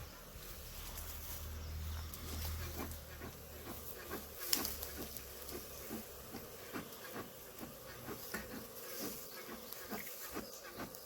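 Honeybees buzzing steadily from an opened hive that has just been smoked to calm them, with a run of light clicks and taps and one sharper knock about halfway through.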